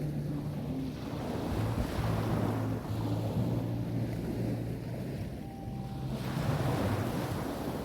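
Sea waves washing onto a beach in a steady rush, with wind buffeting the microphone and a faint low hum underneath.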